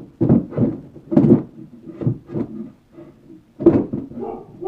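A string of irregular knocks, clicks and clatters from handling AA batteries and the drone controller, most likely while the batteries are fitted into its battery compartment.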